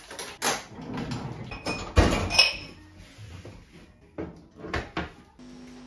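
Kitchen utensils clattering as they are put into a cutlery drawer, with knocks from drawers and cupboard doors. There are several separate clatters, the loudest about two seconds in.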